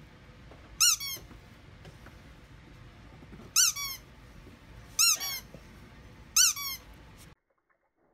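Squeaky dog toy squeezed four times, each squeeze giving a loud high squeak and then a shorter one.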